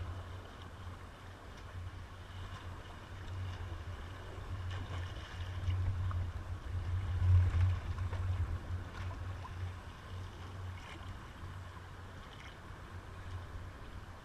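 Pool water lapping and splashing against a camera sitting at the water's surface, heard as a muffled low rumble that swells to its loudest about six to eight seconds in as a swimmer comes right up to the lens.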